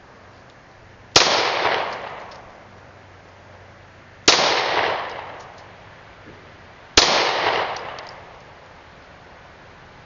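Three single shots from a Ruger SR9 9mm semi-automatic pistol, slow aimed fire about three seconds apart, each sharp crack echoing away over about a second.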